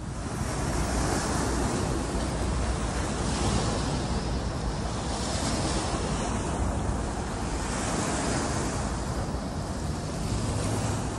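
Steady loud rushing noise that starts and stops abruptly.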